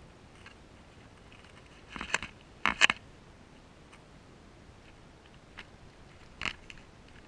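African grass rats nibbling and scratching at a GoPro's housing: short bursts of scraping clicks about two seconds in and again just under three seconds in, the loudest, then once more near the end, over a faint hiss.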